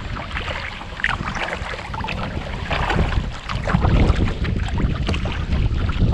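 Choppy water splashing and lapping against a kayak hull as it moves, with wind buffeting the microphone. The wind rumble grows stronger about halfway through.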